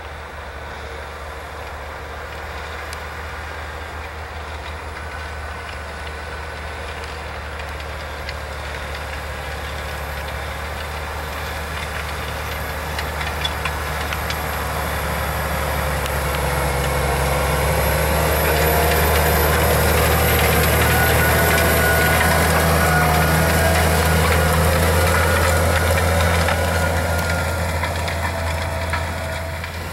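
Large Fendt tractor's diesel engine running steadily while it pulls a tillage implement through corn stubble. It grows louder as the tractor comes closer, loudest about two-thirds of the way in, then drops off near the end.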